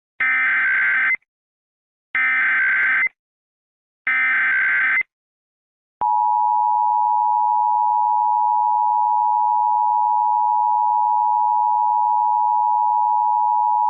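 Emergency Alert System alert tones: three roughly one-second bursts of SAME header data, about two seconds apart, then the steady two-tone EAS attention signal held for about eight seconds.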